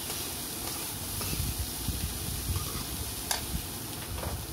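Black chickpeas sizzling in a kadhai while a slotted spoon stirs them, with light scraping and knocking against the pan. A sharp clack a little over three seconds in, after which the stirring stops.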